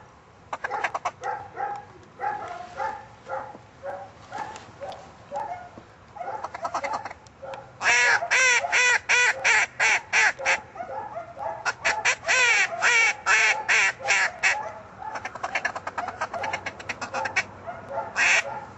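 Duck quacking in fast runs of loud quacks, about four or five a second, with two long runs near the middle and softer quacks before and after.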